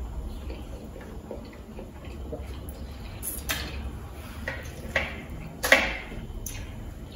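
Eating sounds of a man eating pap with slimy ogbono soup by hand: scattered small wet clicks and smacks of the mouth and fingers, with a few louder sharp smacks around the middle.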